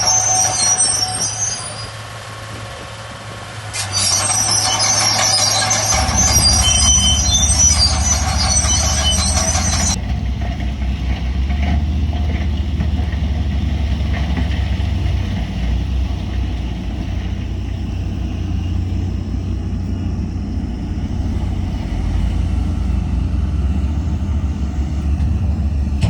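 Bulldozer working: a high metallic squeal from its steel tracks over the diesel engine's low running, easing off briefly about two seconds in. About ten seconds in the squeal stops and the engine's low drone carries on alone.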